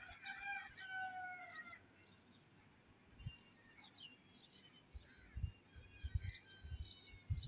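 Faint birds chirping, with a drawn-out, slightly falling tone through the first two seconds and a few low thumps near the end.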